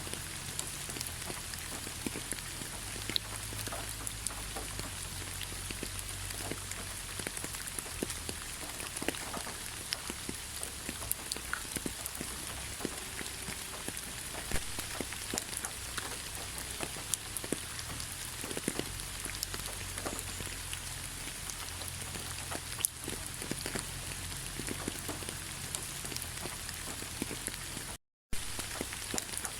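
Steady rain falling, with many separate drops ticking close by. The sound cuts out completely for a split second near the end.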